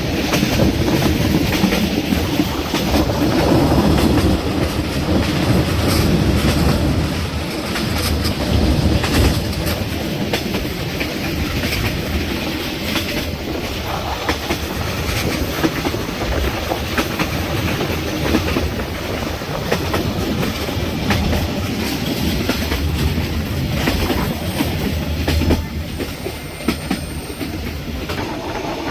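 Sleeper train running along the line: a steady rumble of the carriage with the clickety-clack of wheels knocking over rail joints.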